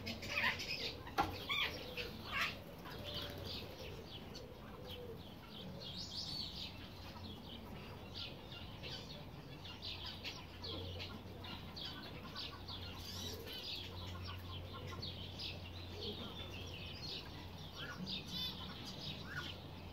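Birds calling: a run of short, high chirps and peeps throughout, with a few louder calls in the first three seconds, over a steady low hum.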